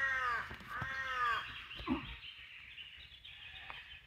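A crow cawing: two calls in quick succession at the start, each rising then falling in pitch. A soft thump follows about two seconds in.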